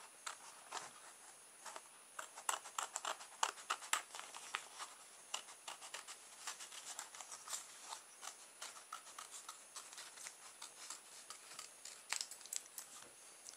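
Scissors cutting through thin cardboard: a run of short, crisp snips at an uneven pace as the blades work around a small circle.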